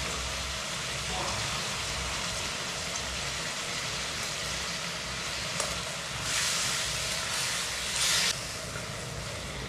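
Sliced beef sizzling as it stir-fries in a very hot steel wok, the hiss surging louder twice near the end as it is stirred with a wooden stick.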